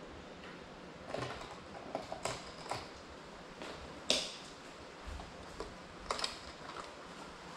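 Scattered light clicks and knocks over faint room hiss, the loudest about four seconds in, as someone moves about and handles gear close to the drone. The drone's motors are not running.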